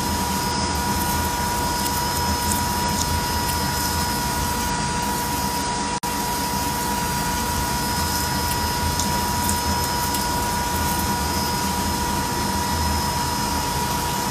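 Metal lathe running steadily with coolant flowing while deep-drilling a 3 mm hole 200 mm long: a constant high whine over a steady wash of machine noise, which cuts out for an instant about six seconds in.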